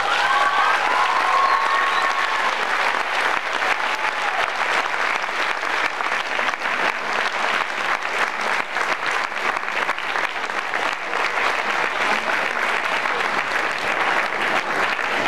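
Audience applauding steadily at the end of a choir's song.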